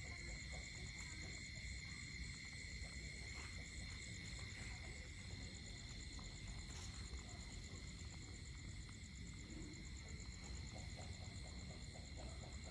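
Faint night chorus of insects and frogs: steady high-pitched trilling throughout, with a quick run of short clicking calls near the end.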